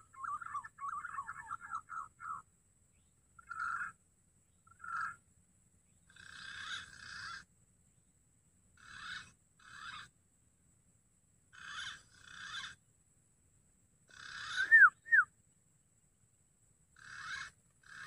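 Green pigeon (punai) calling: a quick warbling whistle for the first two seconds, then short calls in pairs every two to three seconds. The loudest pair, near the end, is two sharp rising-and-falling whistles.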